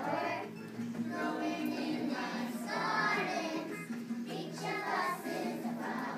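A group of preschool children singing a song together.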